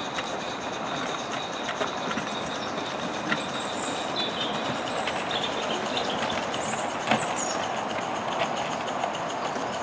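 Accucraft 16 mm scale live-steam Hunslet tank locomotive running slowly with a goods train: a steady hiss with scattered light clicks of the wheels on the track, and one sharper click about seven seconds in.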